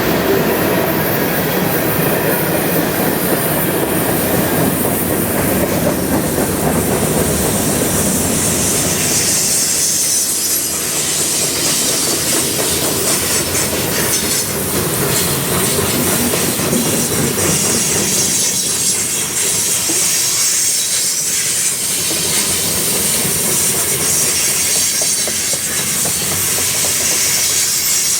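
Freight train cars rolling past: a steady rumble and clatter of steel wheels on the rails. From about ten seconds in, a high-pitched wheel squeal comes in.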